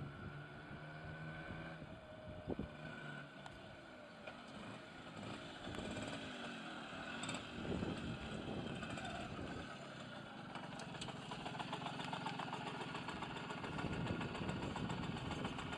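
Suzuki FS1E 49cc two-stroke moped engine running on its first run after a rebuild, steady at first, then rising and falling in pitch from about five seconds in.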